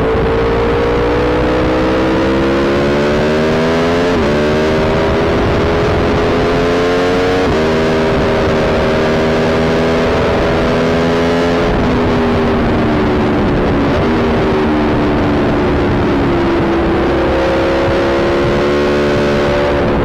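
Aprilia Tuono Factory V4 engine pulling hard on track, its pitch climbing and snapping down at upshifts about 4 and 7.5 seconds in, then holding and stepping down as the rider eases off, over a steady rush of noise.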